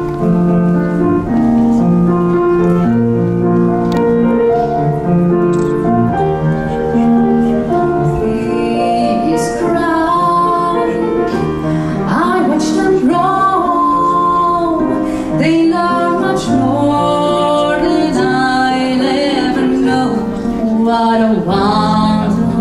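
A woman sings a song into a handheld microphone over instrumental accompaniment. The first several seconds are mostly held accompaniment notes, and her voice comes in strongly about eight seconds in.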